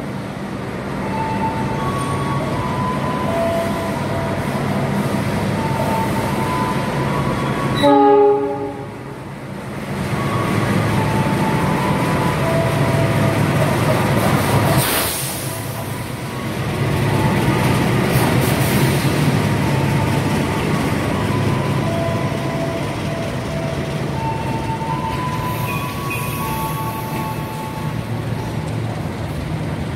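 KAI CC 206 diesel-electric locomotive pulling a passenger train into a station: a steady diesel engine drone as it approaches, one short horn blast about eight seconds in, and the engine passing close at about the halfway point, followed by the coaches rolling past.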